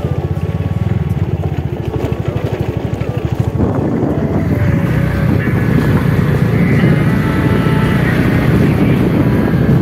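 Motorcycle engine running at low speed on a rough gravel track, its exhaust pulsing evenly. About three and a half seconds in, the sound turns louder and rougher.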